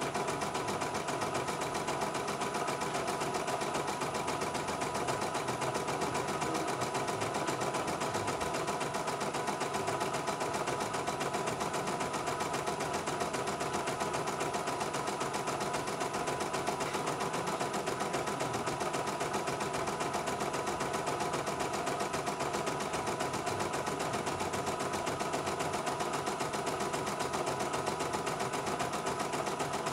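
CNY E900 portable embroidery machine stitching a design: a fast, even needle rattle over a steady motor hum, unbroken throughout.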